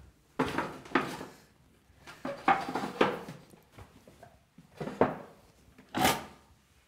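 Six short knocks and scrapes, coming in three pairs, of a chair being handled, pulled out and sat on at a kitchen table.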